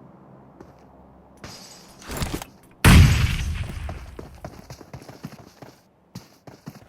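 Two short bursts of noise, then about three seconds in a sudden very loud crash that dies away over about two seconds, followed by a run of quick clattering knocks.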